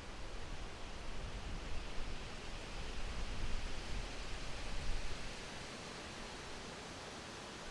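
Summer wind in forest trees: a steady rustling hiss with a gusty low rumble, easing to a calmer, even hiss about five seconds in.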